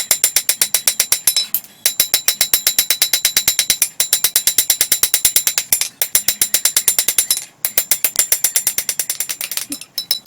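Rapid hammer blows on a hot coil-spring steel knife blade against an anvil, about six a second, each strike ringing. They come in runs broken by brief pauses as the blade is forged to shape.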